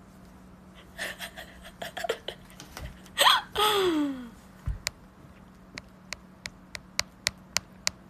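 A woman's short nonverbal vocal sounds, then a drawn-out vocal exclamation falling in pitch. In the second half, a run of sharp, light clicks, about three a second.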